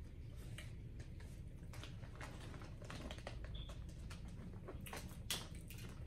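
Clear plastic bag crinkling and rustling as gloved hands dig seafood out of it: a string of irregular crackles, the sharpest about five seconds in.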